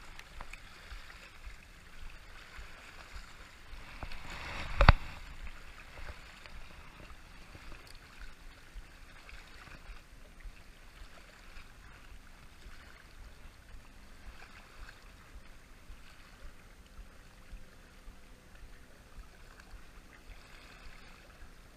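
Faint shoreline water noise with a low rumble of wind on the microphone. About five seconds in, a short rising rush ends in one sharp knock, the loudest moment.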